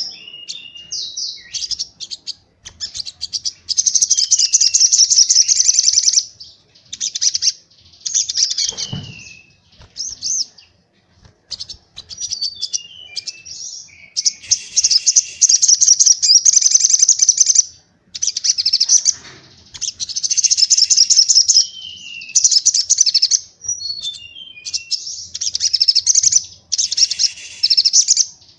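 White-eye (pleci) song in fast, high trilled bursts of one to two seconds each, separated by short pauses and a few short falling notes. This is the rapid 'shooting' (tembakan) song used as training audio for pleci.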